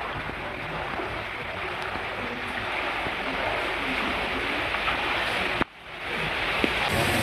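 Floodwater from an overflowing river rushing through a flooded street, a steady watery rush that breaks off for a moment about five and a half seconds in, then resumes.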